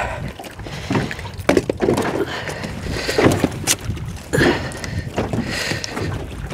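Scattered sharp knocks and clicks of handling inside a small fishing boat, over a low wind rumble on the microphone.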